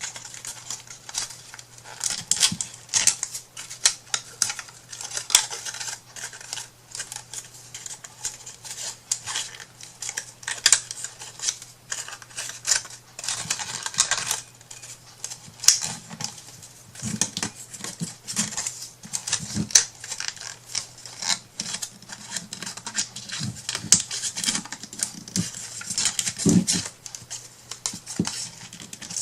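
Nail file rubbed in short irregular scraping strokes, mixed with small clicks and taps of tools and materials on the work surface.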